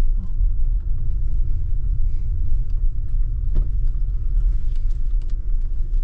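Low, steady rumble inside a car's cabin as it drives over a rough, bumpy farm lane of worked-up sod, with a few light knocks.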